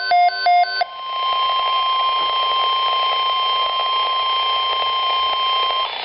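A rapid run of electronic beeps, about four a second, stops about a second in. Then the NOAA Weather Radio 1050 Hz warning alarm tone sounds as one steady tone over radio hiss and cuts off suddenly near the end.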